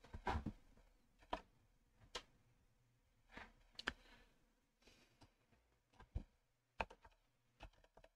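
Faint, scattered computer keyboard keystrokes and clicks, about a dozen separate taps with pauses between them.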